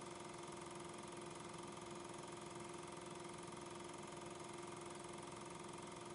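Steady, unchanging hum with hiss, holding a few level tones, with no sound of the steam train itself.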